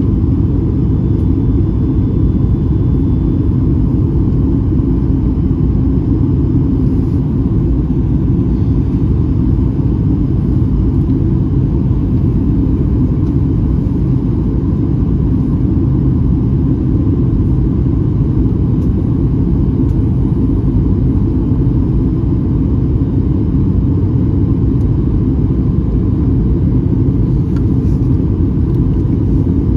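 Steady cabin noise of a Boeing 737-900ER in flight: the low, even rumble of airflow and its CFM56-7B turbofan engines heard from a window seat.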